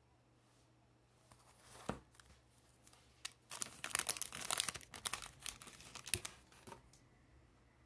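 Foil wrapper of a hockey trading card pack being torn open and crinkled by hand. A single sharp crackle comes about two seconds in, then a dense run of crinkling in the middle, with a few last crackles before it stops.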